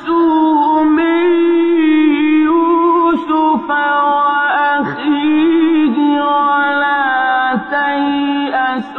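A man's voice reciting the Quran in the melodic, drawn-out tajweed style. He holds long ornamented notes that waver and slide between pitches, with a few brief breaks for breath. The sound is thin and dull, as from an old recording.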